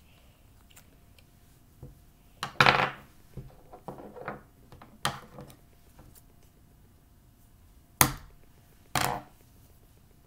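Craft supplies being handled: a few separate knocks, clicks and rustles, the loudest a short rustling clatter about two and a half seconds in, with sharp clicks near five and eight seconds in.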